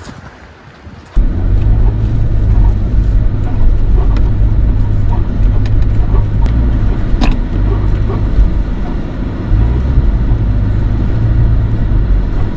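Pickup truck driving slowly over a rocky dirt trail, heard from on the vehicle: a loud, steady low rumble of engine and tyres that starts abruptly about a second in, with a couple of sharp clicks near the middle.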